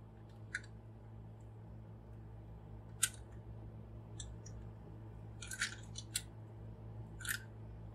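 Hard plastic parts of a transformable robot action figure clicking as a small purple piece is fitted into its chest. A handful of short, separate clicks, the sharpest about three seconds in and a few more close together near the end.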